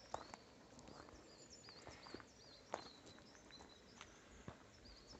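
Near silence with faint birdsong, a repeated warbling phrase, and a few soft footsteps.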